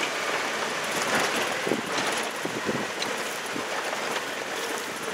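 Toyota truck driving slowly over a rough dirt trail, heard from inside the cab: a steady rush of engine and tyre noise with scattered knocks and rattles as it jolts over the ground.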